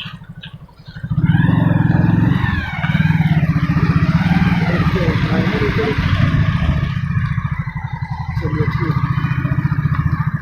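An engine running close by, rising sharply about a second in to a loud, steady, rapid firing beat, with a wavering higher whine over it.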